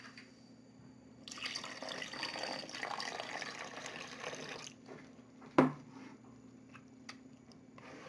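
Water poured from a jug into a bowl of white glue, a steady splashing pour lasting about three seconds. About a second after the pour stops comes a single sharp knock.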